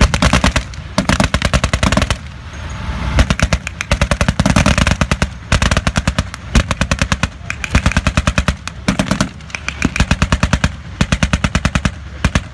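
Machine guns firing blanks in long rapid bursts, one burst after another with short breaks between.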